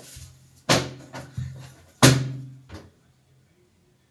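Knocks and clatters of objects being handled at a bathroom sink: five sharp knocks within about two seconds, the loudest about two seconds in, echoing off the tiled walls.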